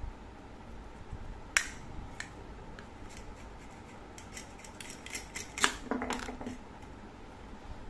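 Plastic toy knife clicking against a toy watermelon and plastic cutting board: a sharp knock about a second and a half in, then a run of light clicks. About six seconds in, the watermelon's velcro-joined halves pull apart with a short crackling rip.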